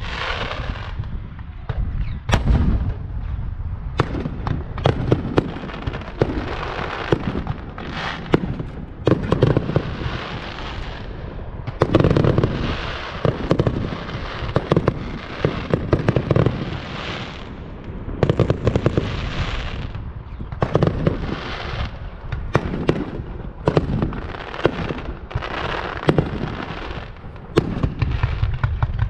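Fireworks display: a rapid, continuous series of sharp bangs and crackling bursts, with clusters of heavier booms every second or two.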